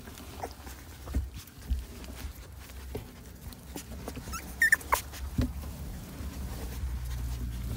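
A puppy gives a couple of short, high whimpers about halfway through, amid scattered rustles and clicks in straw bedding.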